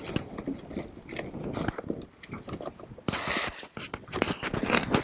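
New stainless wire rigging and its fittings being handled and sorted: irregular metallic clinks and rattles, with a short rustling burst about three seconds in.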